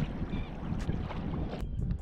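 Wind buffeting the microphone with a low, uneven rumble over small waves lapping against a plastic fishing kayak on choppy water. The sound changes abruptly near the end.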